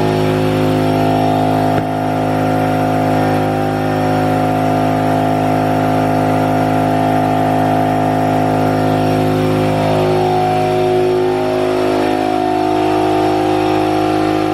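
Brother Speedio S700X1 CNC vertical machining center running: a loud, steady mechanical hum made of several tones, with a brief break about two seconds in and some tones sliding up and down in pitch near the end.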